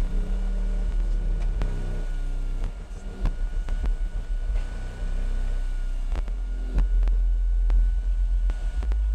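Subwoofers driven hard by a car amplifier at a 1-ohm load, playing a steady, deep bass tone, with scattered clicks through it.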